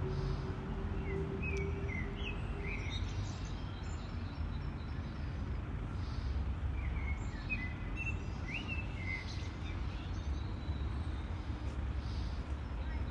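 Steady low rumble of city street noise, with a small bird chirping in two bouts of short notes, about a second in and again about seven seconds in.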